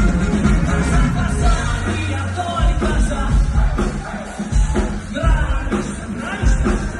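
Loud live pop-rock music: a band with heavy bass and drums playing, with singing.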